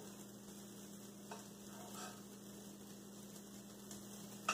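Diced peppers, onions and garlic sizzling faintly in a frying pan while being stirred, with a few soft scrapes of the utensil and a light click of it against the pan near the end. A steady low electrical hum runs underneath.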